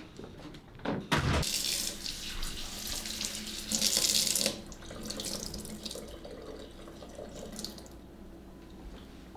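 A thump, then water running from a tap into a sink, loudest for the first few seconds and then quieter.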